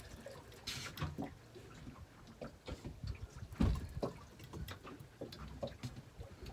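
Sea water lapping and slapping against the hull of a small drifting boat, in irregular small splashes.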